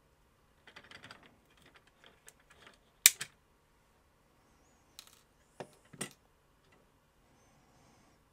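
Side-cutting snips cutting through a steel paperclip wire: light clicking as the jaws are set, then one sharp snap about three seconds in. A few more clicks and knocks follow as the snips and wire are put down on a cutting mat.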